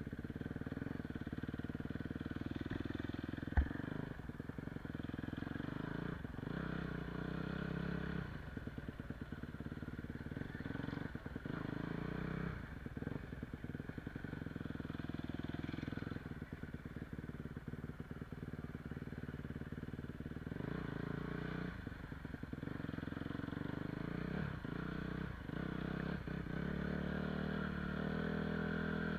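Honda CRF250 four-stroke single-cylinder dirt bike engine running under a rider, picked up by a camera mounted on the bike, its pitch rising and falling with the throttle. There is one sharp click about three and a half seconds in.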